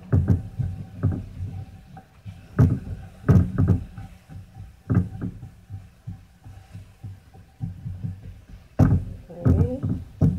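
A spatula knocking and scraping against a frying pan as sliced onions are stirred: an irregular series of dull thumps.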